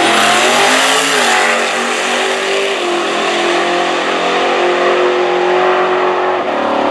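A 4.5-litre compound-turbo diesel with nitrous at full throttle on a drag launch. Its pitch climbs, then drops at the automatic's gear changes about one and three seconds in and holds steady before cutting off about six and a half seconds in as the run ends.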